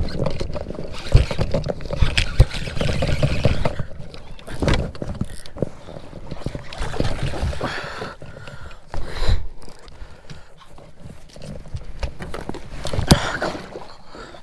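A bass being fought from a kayak on a frog rod and baitcasting reel: irregular knocks and clatter of gear against the hull over splashing water.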